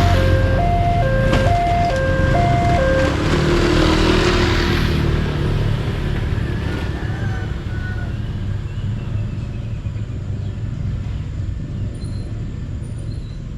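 Railway level-crossing warning alarm sounding a two-tone electronic signal, switching between a higher and a lower pitch about every half second, which stops about three seconds in. A low rumble runs under it and slowly fades, with a rush of noise swelling around four seconds in.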